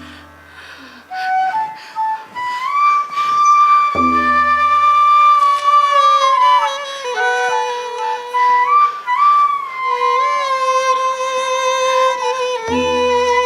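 Flute playing a slow melody of long held notes with pitch bends, over deep drum strokes about four seconds in and again near the end.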